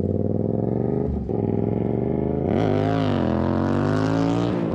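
Motorcycle engine accelerating through the gears, its pitch climbing with a gear change about a second in and another near the end. A rushing noise joins from about halfway.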